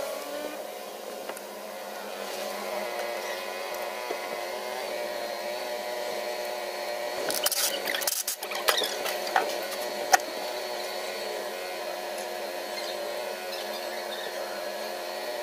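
A steady mechanical hum made of several fixed tones. Between about seven and ten seconds in, a short run of sharp metallic clicks and knocks cuts across it.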